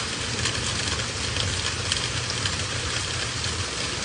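Steady rain falling: an even hiss with scattered drop ticks over a low rumble.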